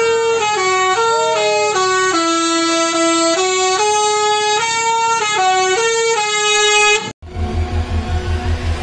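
A bus 'telolet' (basuri) multi-tone air horn plays a tune of held notes. The pitch changes about every half second, with slides between some notes. It cuts off abruptly about seven seconds in, and a low rumble follows.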